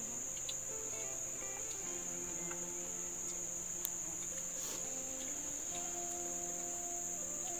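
Steady, high-pitched drone of forest insects such as crickets, with faint held notes of background music underneath.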